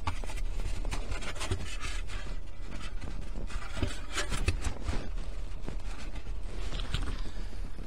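Polystyrene foam block rubbing and scraping against the car's plastic interior trim and mat as it is worked into place by hand, with many small knocks and clicks.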